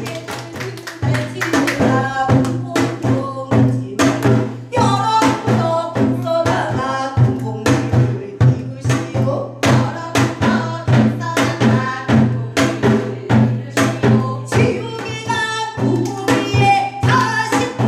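Female voice singing over recorded accompaniment with a steady drum beat and a held low bass note underneath.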